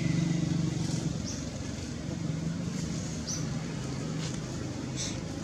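A motor engine running steadily in the background, a low hum that eases off slightly after about a second, with a few short high chirps over it.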